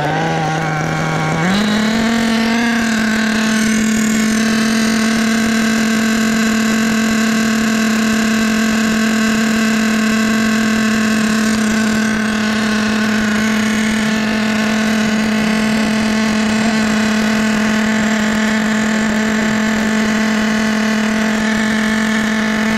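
Adam Drake two-stroke nitro engine in a Kyosho MP10 1/8-scale buggy idling steadily. The idle steps up slightly in pitch about a second and a half in, then holds level.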